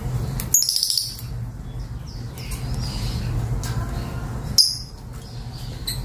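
Lovebirds giving short, high chirps: one about half a second in and two more near the end. A steady low hum runs underneath.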